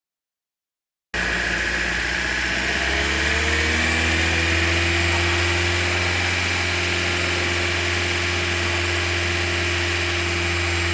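Car engine running steadily with a strong low hum, cutting in abruptly about a second in.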